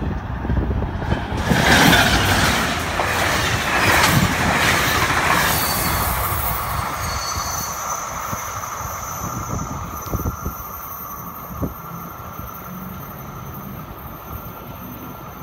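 Tri-Rail passenger train, led by a BL36PH diesel locomotive, passing at speed. There is a loud rush of wheel and rail noise that peaks about two seconds in and dies away after about six seconds, then a steady high tone lingers as the train recedes.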